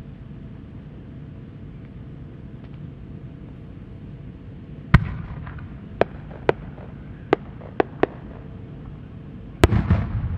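Japanese aerial firework shell: a deep bang as it is fired from the mortar about halfway through, then five sharp cracks from the small effects on its rising tail, then the shell bursting with the loudest bang near the end, trailing off in a rumble.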